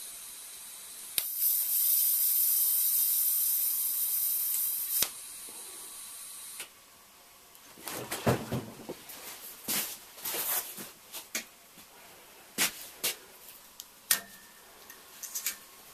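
TIG welding arc tacking a thin-wall stainless steel tube. It strikes with a click about a second in and hisses steadily for about four seconds, with a quieter hiss of the argon shielding gas before and after that stops abruptly. Scattered metallic clicks and knocks of the work being handled follow.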